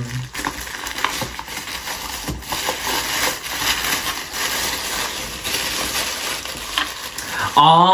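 Pink tissue paper crinkling and rustling as it is pulled open by hand, with irregular small crackles.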